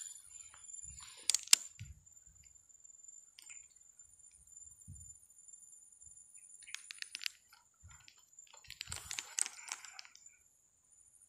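Fishing reel clicking as a lure is cast and wound in: two sharp clicks about a second and a half in, then two runs of rapid clicks in the second half.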